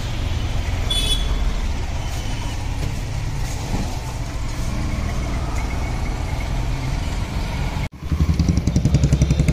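Motor vehicle engines running close by, a steady low rumble. Near the end the sound breaks off for an instant, and then a louder engine throbs with a fast, even pulse.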